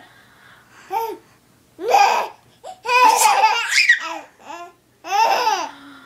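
A baby laughing and squealing in several short bursts with pauses between, the longest near the middle. The laughter is her reaction to fake sneezes.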